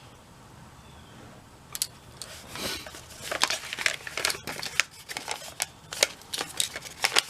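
Small hand tools being handled, likely a toolsmith's tool handle and its bits: a run of quick clicks and rattles starting about two seconds in.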